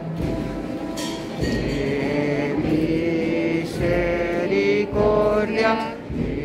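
A slow devotional song to the Nazareno, with long held notes sung with a wide vibrato over sustained accompaniment.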